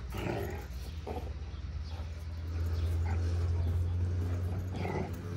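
Kangal puppies play-fighting, giving short growls and whimpers in a few brief bursts, over a steady low rumble.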